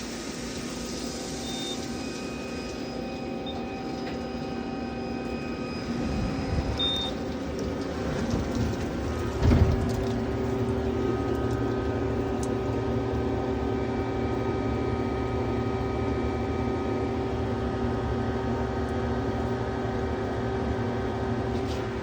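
CNC machine running a cut on a crankshaft blank: a steady machine hum with several held tones, a few louder bumps partway through, and a sharp knock about halfway, after which a low steady tone grows stronger.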